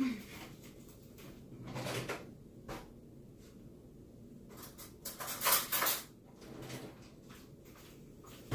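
Rummaging in a kitchen drawer: a few scattered knocks and rattles of utensils, the loudest about five to six seconds in.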